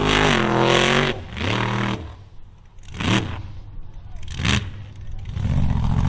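Mud truck engine revving hard through a mud pit, its pitch rising and falling through the first two seconds. Two short sharp blasts follow about three and four and a half seconds in, and a deep steady engine sound builds near the end.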